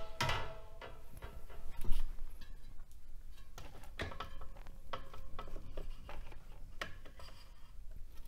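Knocks and clicks of a carbon bicycle wheel being handled and set into a truing stand: a ringing tone dies away at the start, a sharp knock comes about two seconds in, then scattered lighter clicks.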